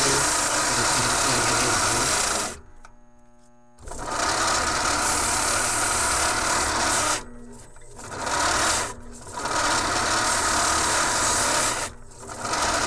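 Bench belt sander running with a rubber belt-cleaning stick pressed against the moving abrasive belt, a steady harsh rubbing noise over the motor hum. The noise drops away abruptly a few times, for about a second each, then comes back.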